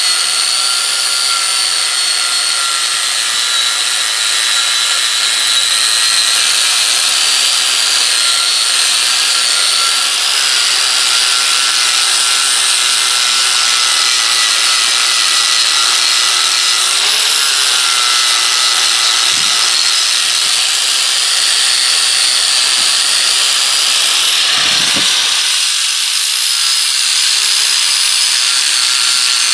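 Angle grinder running steadily against steel, cleaning the railroad-track anvil down to metal fit to weld on. Its motor whine sags slightly now and then as it is pressed into the work.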